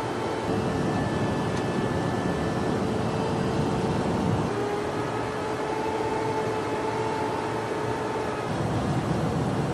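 Steady in-flight noise of a jet aircraft: a constant rush of air and engine drone, with a faint steady whine that drops slightly in pitch about four and a half seconds in.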